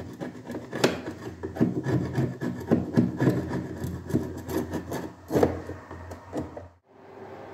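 Hand scraper scraping softened old paint off a wooden window frame in short, irregular strokes. The paint has been loosened with paint remover. The scraping cuts off near the end, leaving a faint steady hum.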